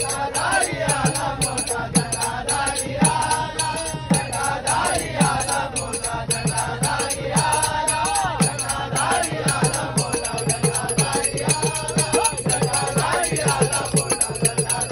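A group of men singing a devotional bhajan together, with a pair of small hand drums keeping a steady beat and a bright jingling percussion running along with it.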